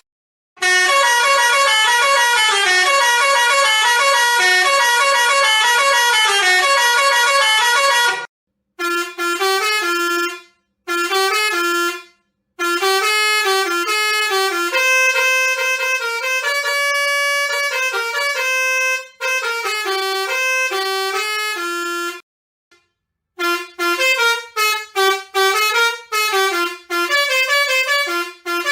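Multi-trumpet musical air horn of a truck playing melodies as a sequence of loud pitched horn notes. One long unbroken run of notes lasts about eight seconds, then shorter phrases follow with silences between them, and near the end comes a fast series of short, clipped blasts.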